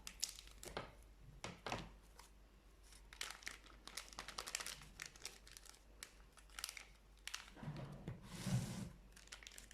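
Faint crinkling and light clicks of kitchen handling as cocoa powder is added to a small bowl of cake batter, with a louder rustle about eight seconds in.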